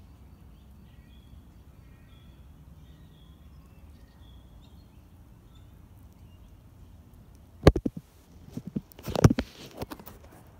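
Faint bird calls over a quiet outdoor background, then about three-quarters of the way in a sharp knock on the phone followed by a cluster of knocks and rustling: handling noise as the iPhone's flip-case flap swings across the phone and its microphone.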